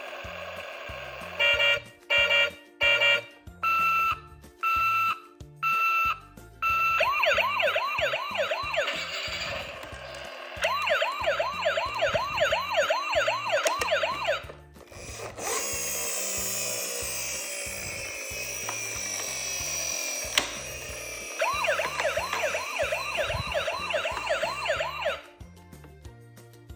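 Electronic toy emergency-vehicle siren: a run of about six short beeps, then a fast warbling siren, a different wailing sweep in the middle, and the fast warble again until it cuts off near the end.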